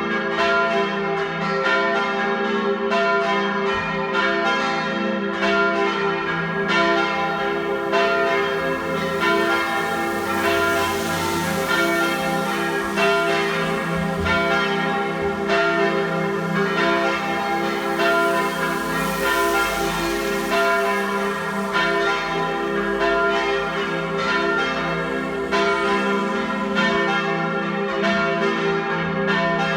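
Several swinging church bells ringing a partial peal (Teilgeläut), their strokes overlapping in an uneven, continuous stream of about two strikes a second: the call to a Sunday evening Mass.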